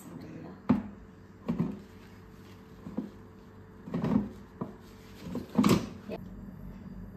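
Basket drawer of a 4.2-litre air fryer being handled and pushed home: a series of knocks and clunks of metal and plastic, the loudest about five and a half seconds in. A steady low hum sets in near the end.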